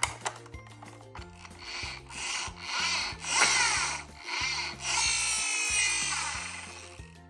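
Die-cast toy minicars rolling down a slope in several successive runs, each a gritty rolling rush, the longest near the end, over background music.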